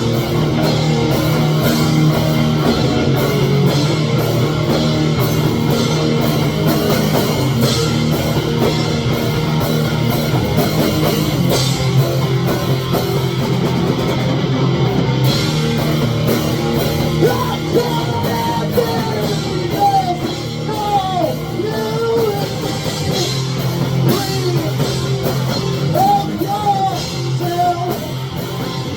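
Rock music with electric guitars and a drum kit. A bending melodic lead line comes in over the second half.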